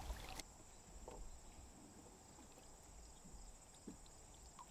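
Near silence: faint outdoor quiet with a steady high-pitched buzz and a few soft ticks.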